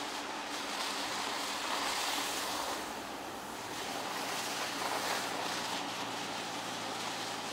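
Mercedes E 220d 4Matic estate's tyres hissing through water and slush on a wet road, swelling twice as it drives by, over a low steady hum.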